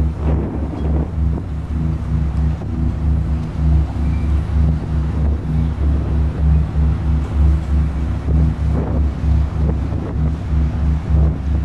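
A synthetic low rumbling drone from a GarageBand sound effect, throbbing in a fast, even pulse with a steady hum of several tones above it. It is meant to pass for a mysterious noise from under the ground.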